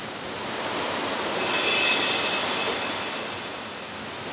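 Waterfall rushing in a steady roar of falling water, swelling a little about two seconds in.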